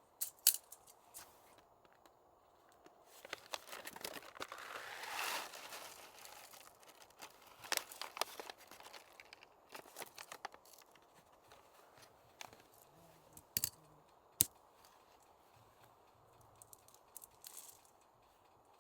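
Faint rustling and crinkling with scattered sharp clicks and taps, like things being handled and unpacked; the rustle swells briefly about four to six seconds in.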